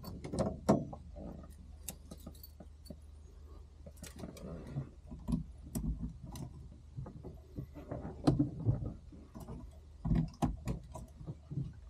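Irregular clicks, knocks and rustles of people handling gear in a small aircraft cockpit, with the engine not running, over a faint steady low hum.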